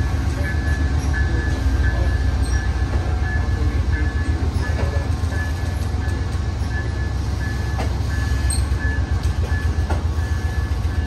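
Amtrak passenger train rolling slowly past a station platform: a steady low rumble with a few faint wheel clicks. Background music plays over it.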